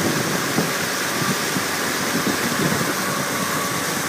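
Outboard motor of a Zodiac inflatable boat running at speed, under a steady rush of wind and churning wake water, with irregular wind buffeting on the microphone.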